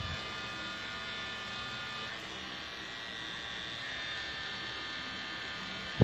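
Pen-style tattoo machine buzzing steadily as it runs, needling colour into a tattoo.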